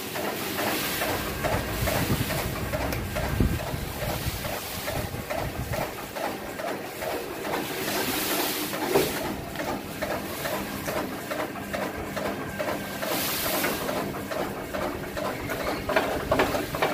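Electric chaff cutter running with a steady motor hum and a fast, even clatter as its blades chop green fodder for cattle.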